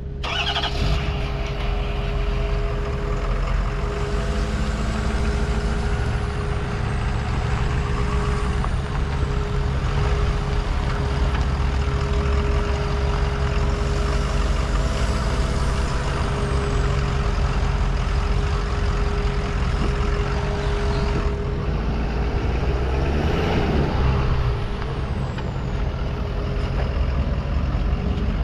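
2011 Ford F350 pickup's engine idling, a steady low drone with a constant hum.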